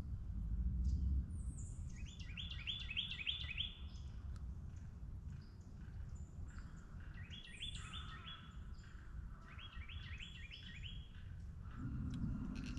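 Songbirds singing, one of them repeating a quick rolling phrase of about six notes three times, with other short chirps around it, over a steady low rumble. A low hum comes in near the end.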